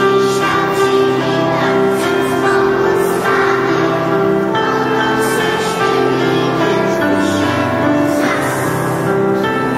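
Music: a song with singing voices over an instrumental backing of held notes.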